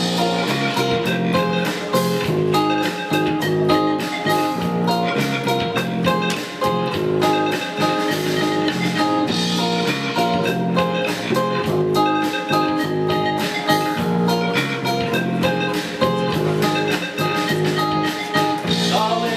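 Live band playing an instrumental break of a song: guitar with a steady rhythmic beat and a melody line, with no singing.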